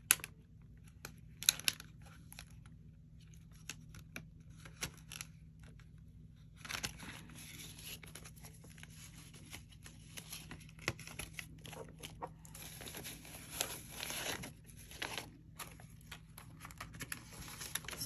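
Paper dollar bills rustling and crinkling as they are pulled from a plastic cash envelope and counted by hand. A few light clicks come in the first seconds, then near-continuous rustling from about seven seconds in.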